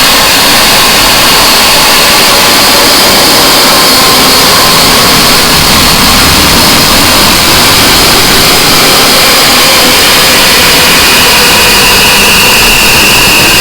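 Harsh noise music: a dense, unchanging wall of distorted static at full loudness, with faint steady high tones running through it. A further high tone comes in near the end.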